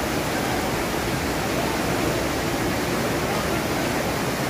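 Fast-flowing floodwater rushing through a street, a steady, unbroken rush of water.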